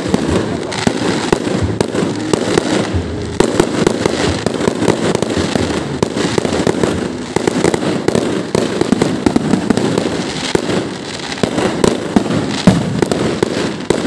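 Aerial fireworks display: shells and comets bursting in rapid succession, a continuous barrage of sharp bangs and crackling with no let-up.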